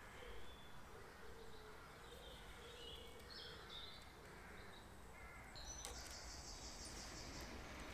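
Quiet woodland ambience with faint bird chirps, then a higher, rapid trilling bird call about six seconds in. A faint insect buzz hangs under it for the first few seconds.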